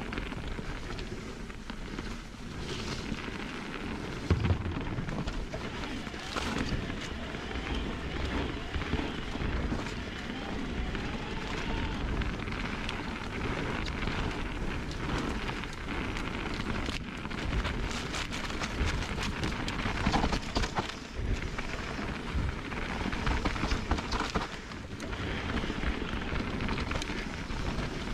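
Mountain bike riding fast down a dirt singletrack, with steady tyre noise over the trail and frequent sharp knocks as the bike hits bumps and roots.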